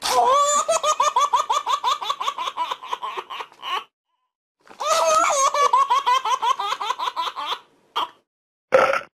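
High-pitched, childlike cartoon laughter: two long bouts of rapid ha-ha-ha pulses, several a second, with a short pause between them. Two brief sounds follow near the end, the second one loud.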